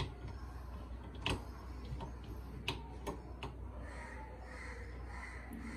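A few faint, sharp clicks, about six and irregularly spaced, over a low steady hum.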